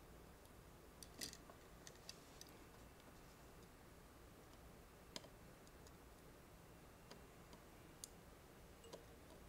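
Near silence with a handful of faint, sharp clicks scattered through, the loudest about a second in: small taps of a soldering iron and fingers working along a circuit board's resistor leads.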